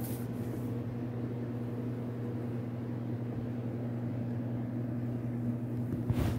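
A steady low hum, like an appliance or motor running in the room. There is a short rustle of handling at the start and a louder handling bump near the end as the camera is moved.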